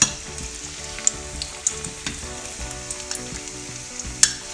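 Ring samosa deep-frying in hot oil in a metal karahi: a steady sizzle with fine bubbling crackle. Two sharp clinks of the metal spoon against the pan, one right at the start and one about four seconds in.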